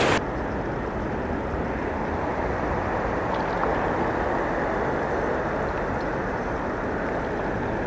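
Rushing water cuts off abruptly right at the start, giving way to a steady, low outdoor rumble with no distinct source, with a few faint ticks about three and a half seconds in.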